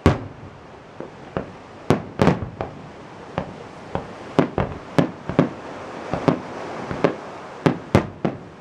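Aerial fireworks bursting in a rapid, irregular series of sharp bangs, about two a second, each with a short echo trailing after it; the loudest bang comes right at the start.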